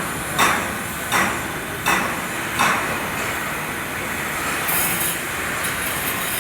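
A hammer striking metal four times, evenly about 0.7 s apart, each blow ringing briefly, then a steady hiss for the rest of the time.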